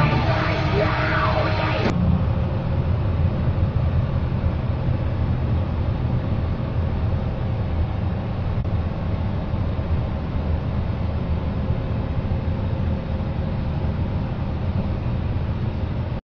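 Truck engine and tyre noise heard from inside the cab: a steady low rumble while driving at highway speed. It follows a short stretch of a different sound with shifting tones, which cuts off abruptly about two seconds in, and the rumble stops abruptly near the end.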